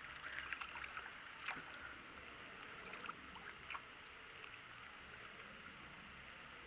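Faint kayak paddling on calm water: a few light paddle dips, splashes and drips in the first few seconds, then only a faint steady hiss.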